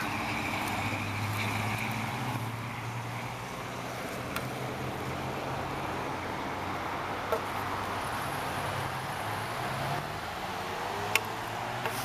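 Road traffic: cars running along a nearby road, a steady hum and rush of engines and tyres. A few short sharp clicks over it, the loudest near the end.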